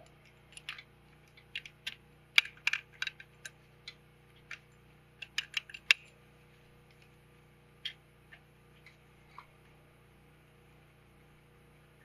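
Irregular light metallic clicks and taps of snowmobile power valve parts and bolts being handled and fitted against the engine cylinder, closely spaced through the first six seconds, then a few scattered ones.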